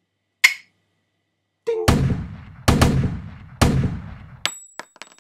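Edited-in sound effects of loud bangs like gunshots. A short burst comes first, then four heavy shots with decaying tails, two of them close together, then a few sharp clicks near the end.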